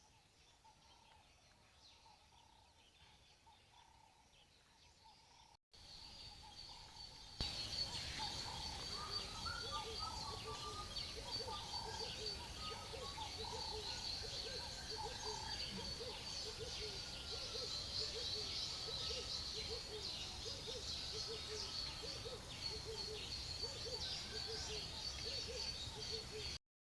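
Rural outdoor ambience: birds chirping and calling over a steady high-pitched drone. It is faint at first and becomes louder about seven seconds in, then cuts off just before the end.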